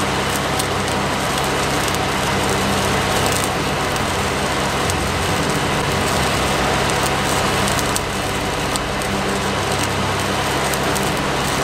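Stick welding arc from a 7018 electrode crackling and frying steadily, with scattered sharp pops, as a vertical-up bead is run on steel.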